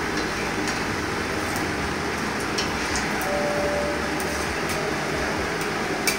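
Athirasam deep-frying in hot oil in an aluminium kadai: a steady sizzle, with a few light metal clicks of the slotted spoon against the pan and a sharper click near the end.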